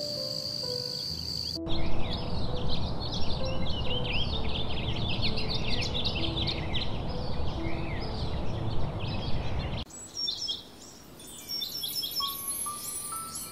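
A steady high insect trill for the first couple of seconds, then many small birds chirping over a dense rush of background noise. About ten seconds in this changes to sparser, higher chirps. Slow background music notes sound throughout.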